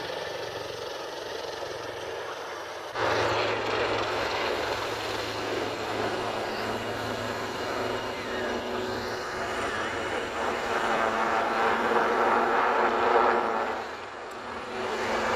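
Helicopter flying a display pass, a steady hum of rotor and turbine engine. It grows louder about three seconds in, is loudest near the end, and dips briefly just before the end.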